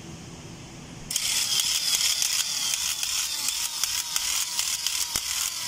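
Electric hand-tufting gun starting up about a second in and running, its needle rapidly punching yarn into the stretched carpet canvas with a fast, hissing clatter of ticks.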